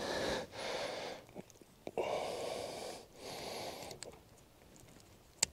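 A person breathing heavily in and out in a slow, regular rhythm, with a single sharp click near the end.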